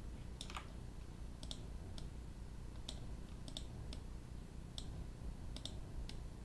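Scattered clicks of a computer mouse and keyboard at irregular intervals, some in quick pairs, over a faint steady low hum.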